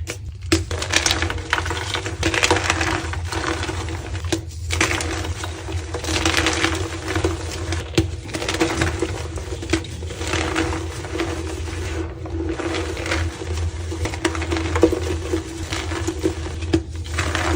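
Reformed white gym chalk blocks being crushed by hand, crunching and crumbling in repeated bursts a second or two apart, over a steady low hum.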